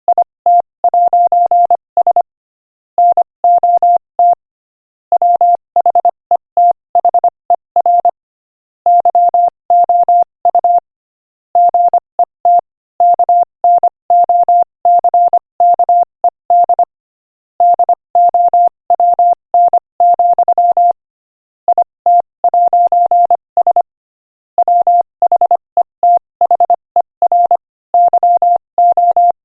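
Morse code sent at 25 words per minute: a single steady mid-pitched beep keyed on and off in quick dots and dashes, with pauses of about a second between words.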